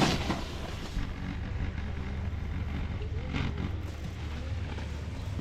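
Steady low wind rumble on the camera microphone, with a faint hiss of skis sliding on snow.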